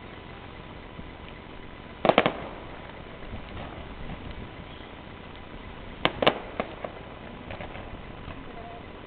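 Fireworks going off: a quick cluster of three or four bangs about two seconds in, then two more a few seconds later, followed by a couple of fainter pops.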